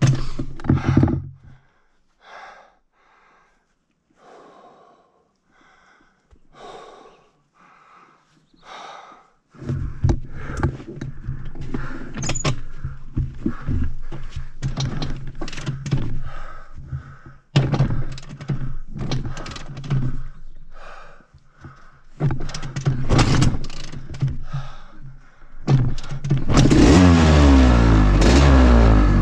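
Short, irregular puffs of heavy breathing. About ten seconds in, a Honda CR500's big single-cylinder two-stroke engine starts up and runs unevenly at low throttle. Near the end it revs up hard with a rising pitch as the bike pulls away.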